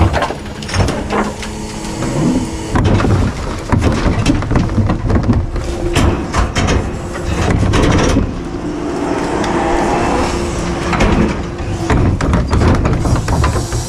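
Garbage truck running, with repeated metal clanks and rattles over a steady low engine rumble.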